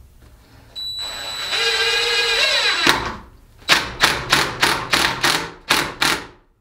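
Cordless drill running into a small log clamped in a bench vise: a steady motor whine with a longer run whose pitch climbs near its end, then about eight short trigger bursts, roughly three a second, which are the loudest part.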